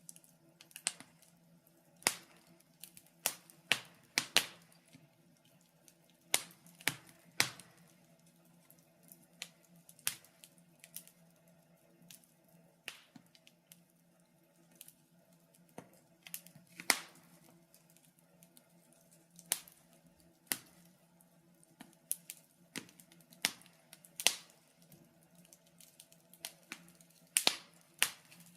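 Wood fire crackling in a fireplace: irregular sharp pops and snaps, a few of them much louder, over a faint steady low hum.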